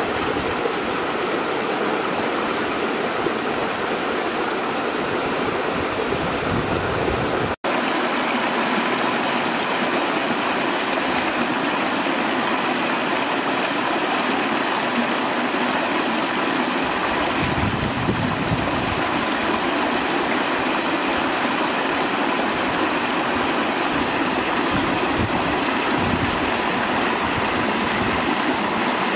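Shallow stream rushing over rocks, a steady wash of flowing water. It cuts out for an instant about seven and a half seconds in.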